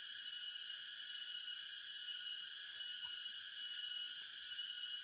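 Steady, high-pitched chorus of insects in tropical forest, a continuous even shrill with one piercing tone in it.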